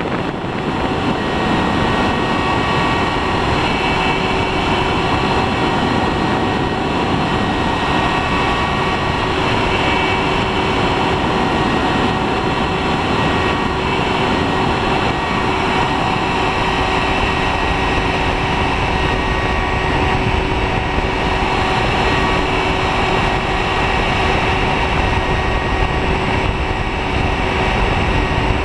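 Home-built CNC machine engraving brass: the spindle runs steadily and the cutter works the metal, a dense steady noise with several fixed whining tones that stays even throughout.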